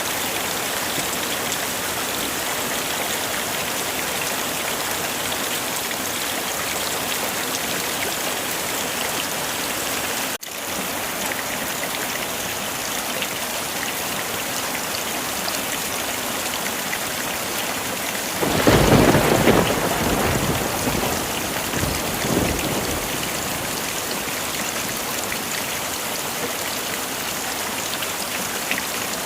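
Heavy rain falling steadily. About two-thirds of the way in, a clap of thunder breaks out and rumbles away over a few seconds. There is a split-second dropout about a third of the way in.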